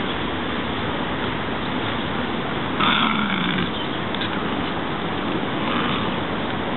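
Welsh Terrier growling as it gnaws and tugs at a branch, over a steady rushing noise. A brief, louder, higher-pitched sound comes about three seconds in.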